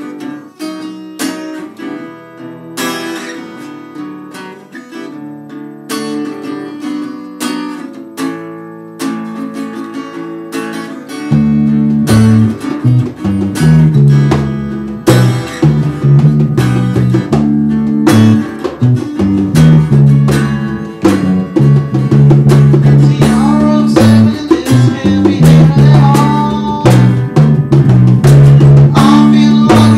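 A small acoustic rock band playing: acoustic guitar strumming steadily, joined about eleven seconds in by an electric bass guitar, with a hand drum played by hand and a male voice singing in the later part.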